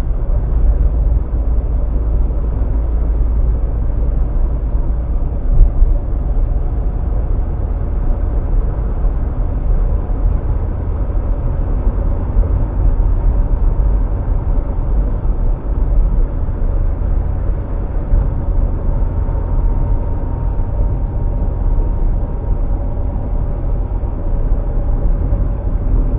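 Steady low road and engine rumble of a car heard from inside the moving cabin.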